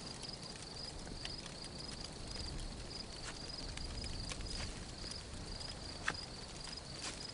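A cricket chirping at an even rate, a few high chirps a second, over faint scattered ticks and shuffles, with one slightly sharper click about six seconds in.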